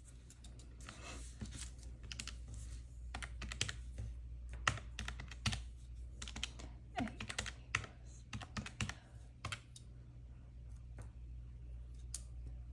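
Calculator keys being tapped in irregular runs of clicks as figures are re-added, over a faint steady low hum.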